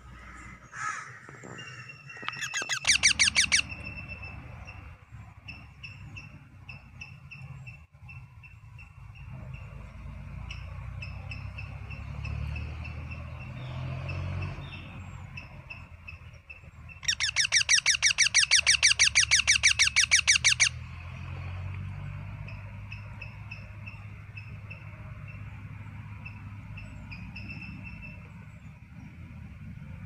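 Young parakeet calling in bouts of rapid, harsh repeated notes, about eight a second: a short bout near the start and a longer one of nearly four seconds past the middle.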